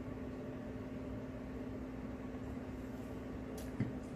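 Room tone: a steady low electrical hum over faint hiss, with a couple of faint clicks near the end.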